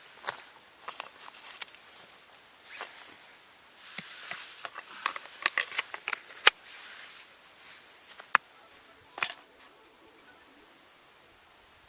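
Irregular clicks, taps and rustling, like camping gear being handled, with a few sharper knocks. It goes quiet for the last couple of seconds.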